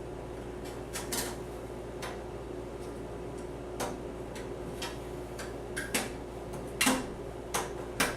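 Scattered sharp metal clicks and taps as a motherboard I/O back plate is pressed and snapped into the rear of a server chassis, the loudest near the end. A steady low hum runs underneath.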